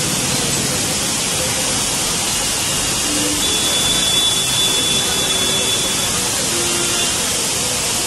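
Water cascading in a sheet off the edge of an elevated concrete deck onto the road below: a loud, steady, dense rushing hiss.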